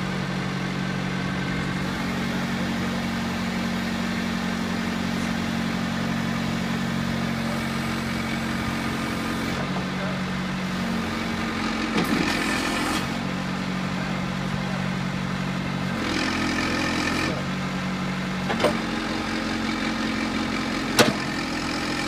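John Deere backhoe loader's diesel engine idling steadily, its pitch stepping up and down a few times, with a few sharp clicks or knocks in the second half.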